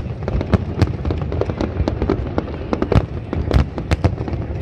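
Aerial fireworks shells bursting over a large display: many sharp bangs in quick, irregular succession over a continuous low rumble.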